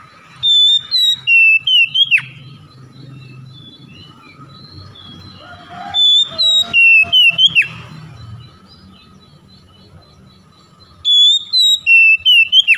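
Oriental magpie-robin (kacer) singing three loud phrases of whistled song, each about two seconds long and made of quick sliding notes. There are pauses of a few seconds between the phrases.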